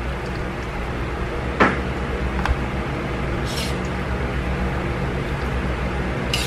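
A steady low hum, with a few light clicks and taps as rendang is picked by hand from a metal wok into a plastic tub.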